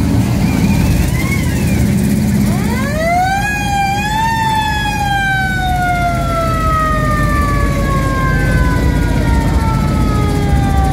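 A siren rises in pitch for about two seconds, then slowly falls for the rest of the time, over the low rumble of cruising car engines.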